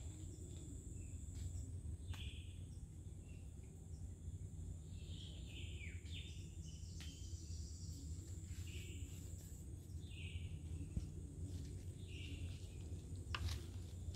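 Tropical swamp forest ambience: a steady high-pitched insect drone, with a bird giving short chirps about once a second, a few of them falling in pitch around the middle. A low steady rumble lies beneath, with a few sharp clicks.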